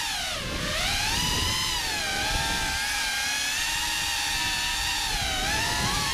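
Electric motors and propellers of a GEPRC CineLog35 3.5-inch ducted FPV cinewhoop drone whining in flight. The high-pitched whine rises and falls as the throttle changes, over a low rumble of air.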